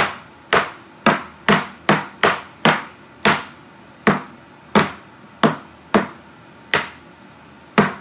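Cleaver chopping a peeled banana into slices, the blade knocking on a plastic cutting board: a series of about fifteen sharp chops, roughly two a second.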